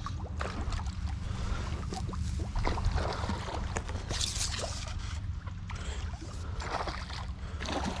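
Steady low rumble on the microphone, with scattered rustles and clicks from clothing and from handling the baitcasting rod and reel. A louder rustle comes about four seconds in.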